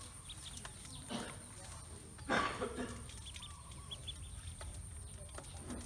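Domestic ducklings peeping in short, high notes as they feed in a metal basin, with a brief louder scrabbling noise a little over two seconds in.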